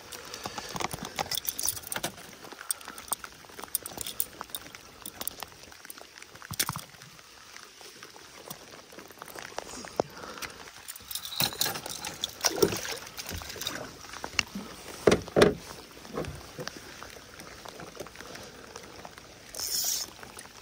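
Rain pattering on the water and the kayak, with metallic clicks and clinks from fishing pliers and a lip-grip tool being handled. A few louder knocks come about two-thirds of the way in.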